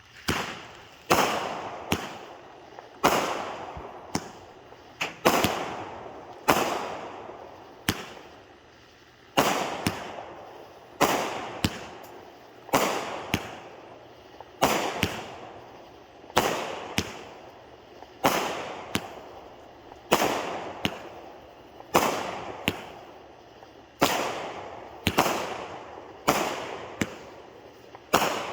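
A Wicked Pissah consumer fireworks cake firing a long run of shots, about one bang a second. Each bang is sharp and trails off quickly.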